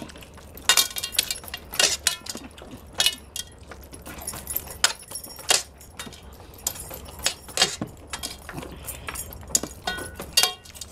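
Heavy metal bracelets and rings jangling and clinking against a stainless steel plate as hands tear at mutton and scoop rice, in quick irregular clicks.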